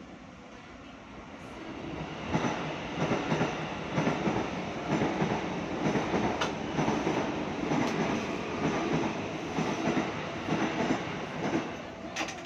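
Jakarta KRL electric commuter train running on the track, its wheels clattering over the rail joints in a quick irregular clickety-clack. The sound builds over the first two seconds and then stays loud.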